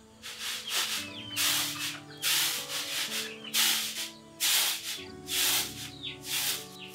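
Woven bamboo hand fan swishing through the air in a steady rhythm, about one stroke a second, fanning a wood fire in a clay stove.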